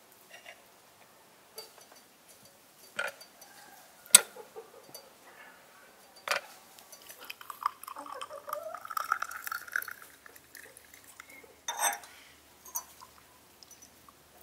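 Light clinks of a metal spoon and glassware, the sharpest about four seconds in, then liquid running from a samovar tap into a small glass tea cup, rising slightly in pitch as the glass fills.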